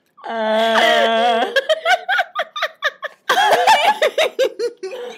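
Young women laughing hard together: a drawn-out held laugh of about a second, then choppy bursts of laughter in quick pulses, with a short break about three seconds in.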